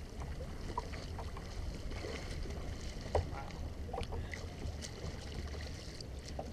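Water splashing and lapping around a kayak as it is paddled, with scattered small splashes, one louder about three seconds in, over a low wind rumble on the microphone.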